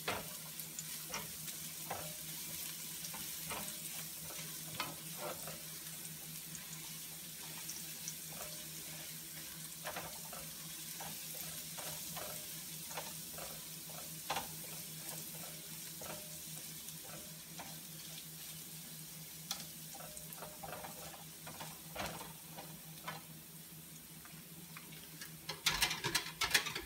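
Chopped garlic sizzling in a little hot oil in a nonstick wok, the early sauté stage, while a silicone spatula stirs it with scattered scrapes and taps against the pan. A few louder knocks come near the end.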